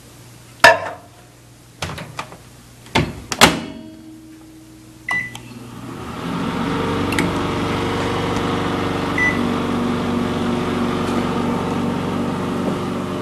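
A few sharp knocks and clatters, then a short keypad beep about five seconds in, after which a microwave oven starts and runs with a steady hum.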